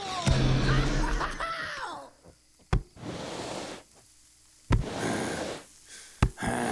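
Re-recorded cartoon fight sounds: a character's pained, wavering groans and yelps, then three sharp thuds about two seconds apart, with rushing swishes between them.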